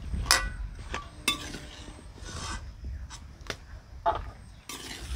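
Metal cooking pot and lid being handled: several sharp clanks with scraping and rubbing between them, as a pot of boiled potatoes is taken off the fire.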